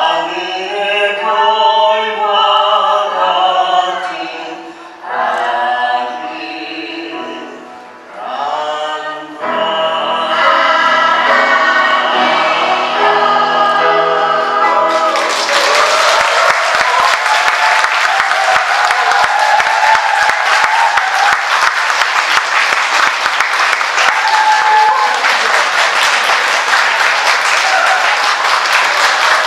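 A children's choir sings the closing phrases of a song, ending on a long held chord about halfway through. The audience then breaks into steady applause.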